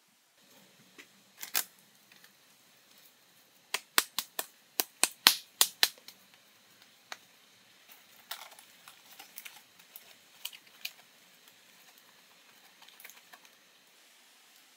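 Sharp clicks and taps from hand work, loudest in a quick run of about ten in the middle, then softer, scattered pats as wet mud is pressed by hand onto a leaf-thatched roof.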